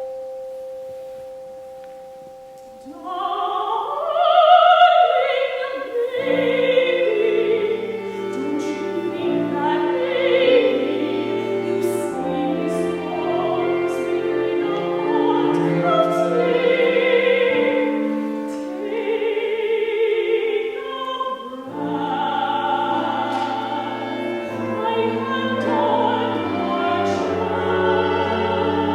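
Operatic singing with a wide vibrato over an instrumental accompaniment. A held note fades during the first few seconds; about three seconds in, the voice sweeps upward and sings on, with low held bass notes beneath from about six seconds in.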